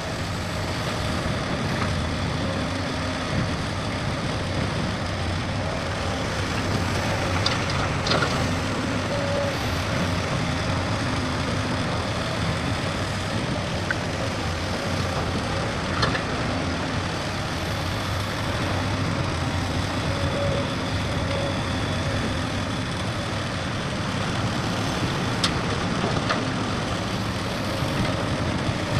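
Heavy diesel construction machinery running steadily, with a few short sharp clanks.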